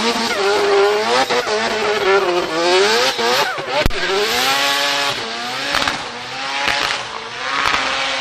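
Twin-turbo 26B four-rotor rotary engine in a Mazda MX-5 Miata ND, revving up and down again and again as the car drifts with its rear tyres spinning in smoke, tyre noise underneath. A single sharp crack about four seconds in.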